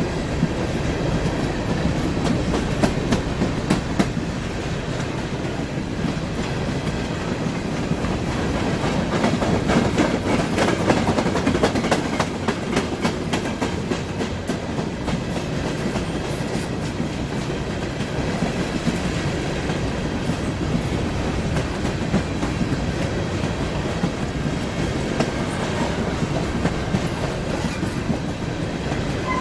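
Freight train of covered hopper cars rolling steadily through a crossing: a continuous rumble of steel wheels on rail, with many short clicks as the wheels pass over rail joints.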